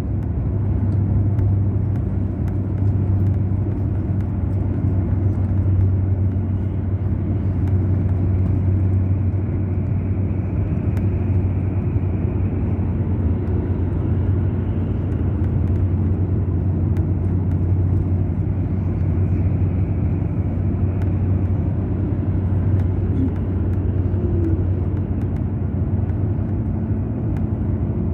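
Mercedes-Benz O500 RSD BlueTec5 coach's diesel engine running steadily under way, a constant low drone with no change in speed.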